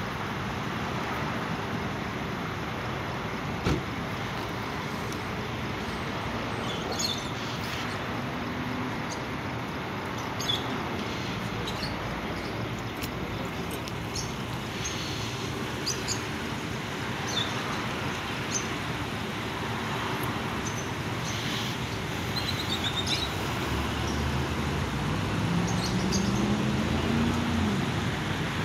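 Steady vehicle and traffic noise, with scattered faint high chirps and clicks. Near the end a vehicle engine grows louder, its pitch rising and then dropping.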